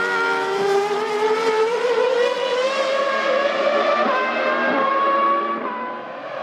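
Formula One race car V10 engine at high revs, its note climbing steadily for about four seconds, then levelling and falling away near the end.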